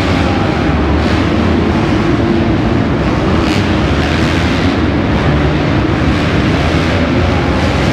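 Several motocross dirt bikes racing, their engines running together as a loud, steady mass of engine noise inside an enclosed arena.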